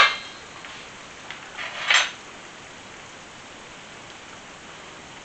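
Pork ribs simmering in tomato sauce in an uncovered frying pan, a steady sizzle, with a fork clinking against the pan about two seconds in.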